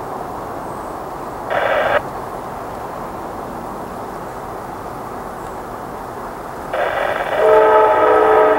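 CSX diesel freight locomotive approaching and sounding its multi-note air horn: a short blast about a second and a half in, then a long, louder blast starting near the end, over the steady rumble of the train.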